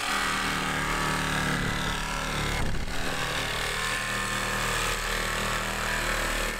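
Cordless DeWalt jigsaw with a metal-cutting blade running steadily, sawing through the Ford Transit's sheet-steel roof panel.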